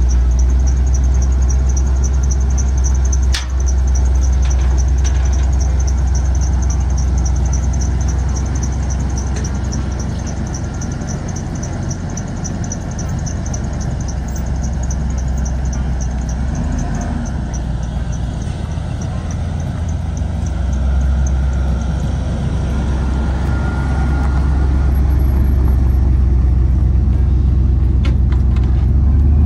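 Engine of a 1998 Saleen XP8 SUV running at idle and low speed as it is driven down off a car trailer, with a deep steady hum that eases a little midway and builds again later. A single sharp click comes about three and a half seconds in.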